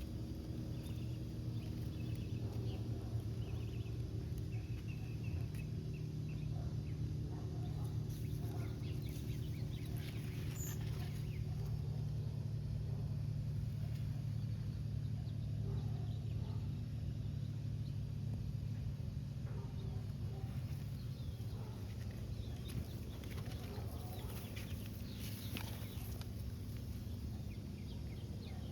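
A steady low hum with scattered short bird calls over it, the calls coming more often in the second half.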